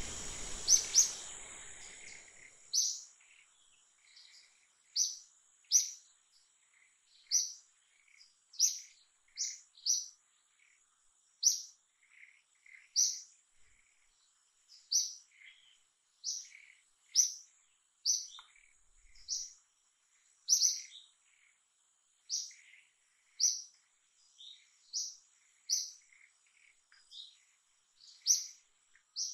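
A bird calling over and over with a short, sharp, high chirp, roughly one every second or so, over a faint steady high whine. A burst of noise fades out over the first couple of seconds.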